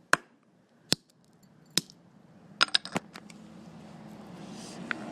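Sharp clicks and knocks of hard plastic from a broken calculator being handled or struck: three single knocks about a second apart, then three quick ones. A steady noise rises toward the end.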